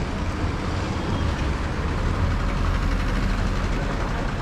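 Steady low rumble of a vehicle engine running, over general street noise.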